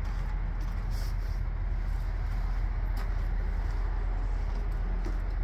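Hino J08 7.6-litre inline-six diesel engine idling with a steady low rumble.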